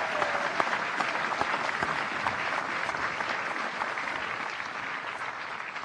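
Audience applauding steadily, a dense patter of many hands clapping that slowly dies down toward the end. A whistle falls away just at the start.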